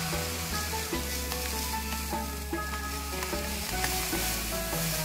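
Granulated sugar poured from a plastic bag into a clear jar: a steady hissing trickle of grains, with background music.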